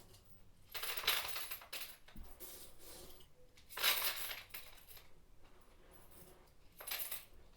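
Small hard objects clattering in a cup, in three bursts of about a second or less each.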